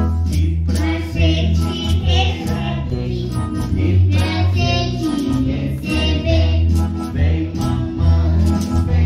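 Music: a song with voices singing over a bass line.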